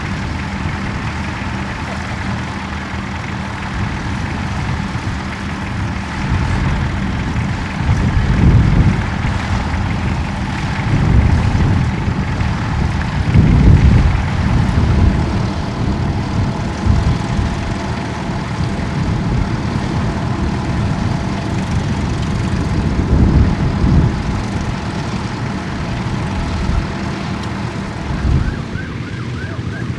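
Tractor engine running steadily, with a drawn-out whine over it and wind gusts buffeting the microphone several times.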